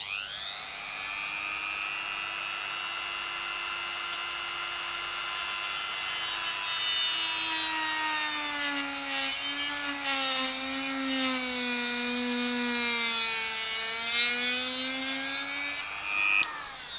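Dremel rotary tool with a cut-off wheel spinning up to a steady high whine, then cutting into a drone arm's plastic shell. From about 7 s it is louder with a grinding rasp, and its pitch sags under the load. It is switched off near the end and winds down.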